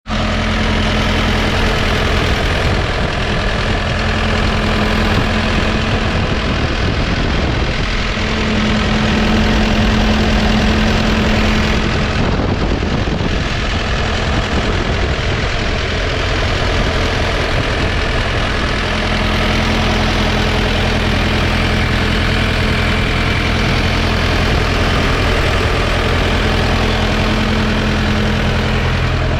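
Diesel engine of a 2012 New Holland B90B backhoe loader idling steadily. A steady tone fades in and out over the engine several times.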